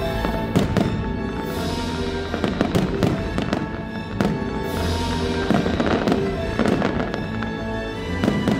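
Fireworks bursting and crackling in a rapid series of sharp cracks, over the show's soundtrack music.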